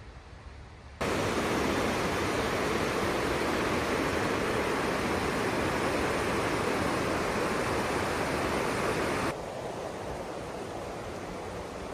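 Loud, steady rush of river water churning through a rocky gorge. It starts suddenly about a second in and drops abruptly to a quieter rush near the end.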